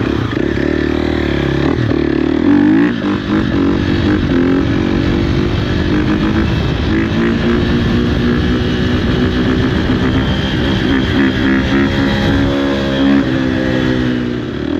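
2018 Husqvarna FC350's single-cylinder four-stroke engine running under throttle, its pitch climbing about two to three seconds in, then holding high with small rises and falls.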